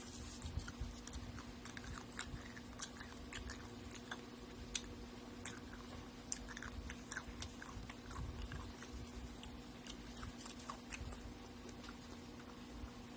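Close-up chewing and biting of a piece of boiled chicken, with many small sharp clicks scattered throughout. A steady low hum runs underneath.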